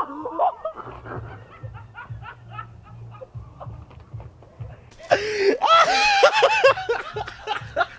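A person laughing hard in quick repeated bursts, starting about five seconds in after a quieter stretch.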